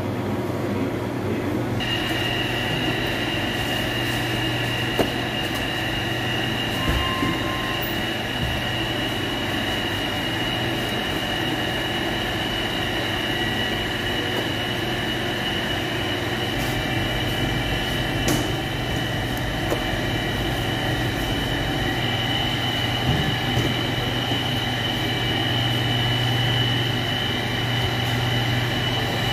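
Bakery machinery running steadily: a low hum with a high steady whine that comes in about two seconds in, and a few light knocks.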